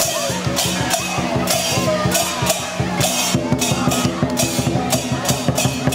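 Dragon dance percussion: a drum beating fast and steadily, with regular clashes of cymbals over it.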